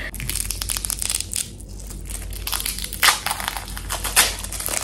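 Plastic wrapping crinkling and crackling as it is pulled and twisted off the lid of a glass pickle jar, with a few louder crackles about three and four seconds in.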